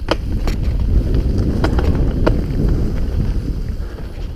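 Mountain bike running fast down a dirt forest trail: a steady low rush of wind on the microphone and tyre rumble, with a few sharp knocks and rattles of the bike over bumps in the first couple of seconds.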